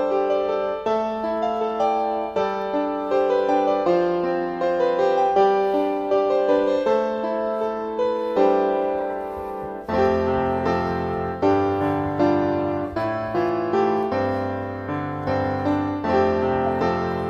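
Piano background music, a gentle melody of single struck notes; lower bass notes join about ten seconds in.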